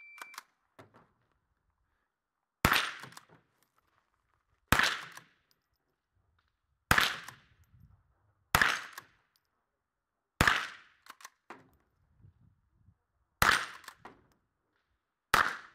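A shot-timer beep, then seven shots from a .22 rimfire rifle, sharp cracks fired one at a time about one and a half to three seconds apart.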